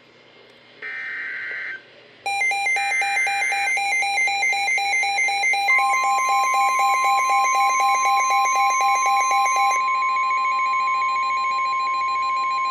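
Emergency Alert System alert tones: two short buzzy digital data bursts, then a loud rapidly pulsing electronic alarm tone starting about 2 s in. A steady single alarm tone joins it a few seconds later and carries on alone after the pulsing stops near the end.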